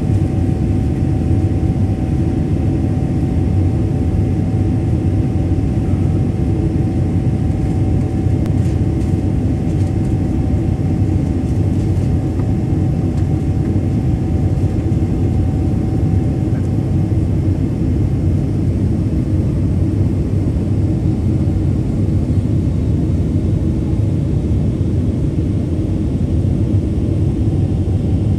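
Steady cabin drone of a Boeing 777-300ER climbing after take-off: the low rumble of its GE90 turbofan engines and the rushing airflow, heard inside the cabin. A faint steady whine sits above it and fades out a little past halfway.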